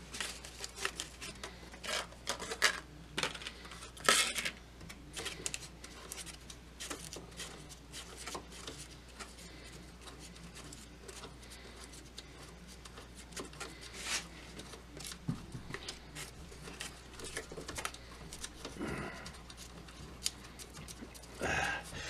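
Irregular small clicks, scrapes and rattles of metal hardware as hands work at the antenna mount of a Zenith B600 Trans-Oceanic tube radio's chassis to free it, starting with a loose bolt. A few sharper clicks stand out about three and four seconds in.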